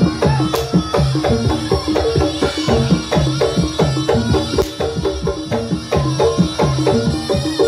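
Jaranan accompaniment music played live: fast, steady drum strokes over a repeating pattern of pitched notes.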